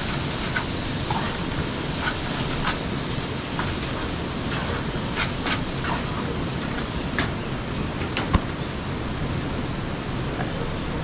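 Rice frying in a pot on a gas camping stove, a steady sizzling hiss, while a metal spoon stirs it with scattered scrapes and clinks against the pot. A sharper metallic clink comes about eight seconds in.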